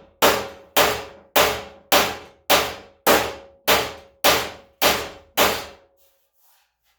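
A hammer striking the steel front fender of a 1978 Ford F100 that rests on a shot bag, knocking out a dent: about ten evenly spaced blows, nearly two a second, each with a brief metallic ring. The blows stop about five and a half seconds in.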